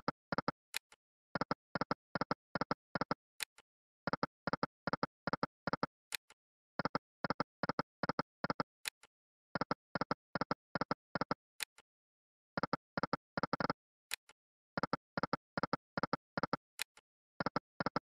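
Slot game sound effects from the 5 Dazzling Hot online fruit slot: one spin after another, about every three seconds. Each spin has a single high tick, then a quick run of short pitched clicks as the reels stop one after another.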